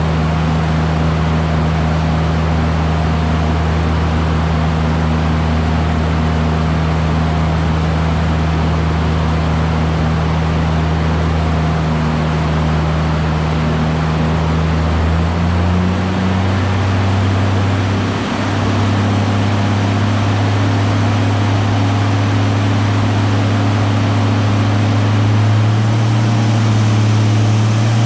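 Toyota 1JZ inline-six engine running steadily with a low drone. Its engine speed steps up about halfway through and again near the end.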